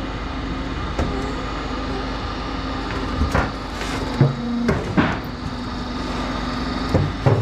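Metal-roofing-tile roll-forming machine running with a steady hum. There is a light click about a second in, then several sharp metallic knocks from about three seconds on, the last two close together near the end.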